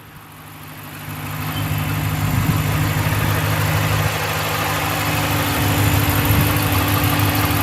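A 2015 Dodge Ram 1500's 5.7-litre Hemi V8 idling steadily, growing louder over the first two seconds.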